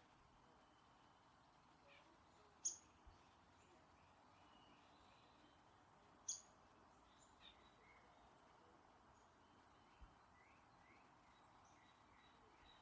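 Faint birdsong: scattered short chirps, with two sharper calls about two and a half and six seconds in, over a faint steady hiss.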